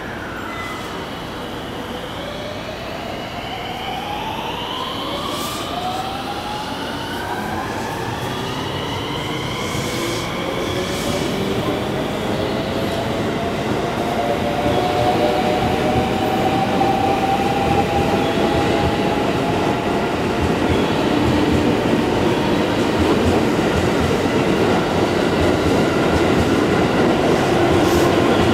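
JR West 223 series electric train pulling out of the station. Its traction motors give a whine of several tones rising in pitch over the first ten seconds or so, then hold steady while the running noise of the passing cars grows louder.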